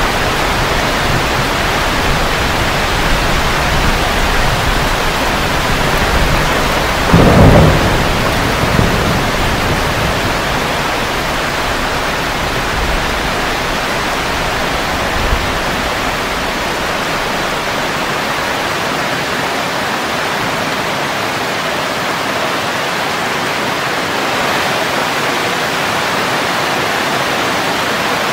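Steady heavy rain falling on leaves and plants, with thunder rumbling through the first half and a loud thunderclap about seven seconds in.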